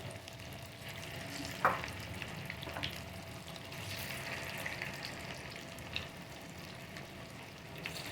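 Battered chicken pakoras deep-frying in hot oil in a kadai, a steady sizzle, with a sharp tap about a second and a half in and a fainter one a second later.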